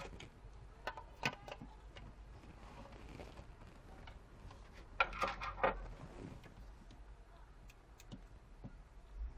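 Small clicks and taps from handling an opened Samsung Galaxy S4 and its charging cable, with a cluster of clicks about a second in and another, louder cluster around five seconds in.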